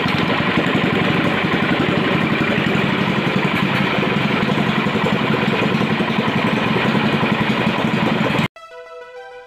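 A 420 cc single-cylinder petrol engine on a longtail boat drive runs steadily, just overhauled with a new 0.50 oversize piston. About a second before the end, the engine sound cuts off abruptly.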